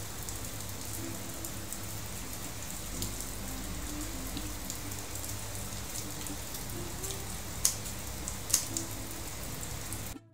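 Kitchen scissors cutting boiled beef tendon: scattered faint snips, with two sharper snips about three-quarters of the way through, over a steady background hiss.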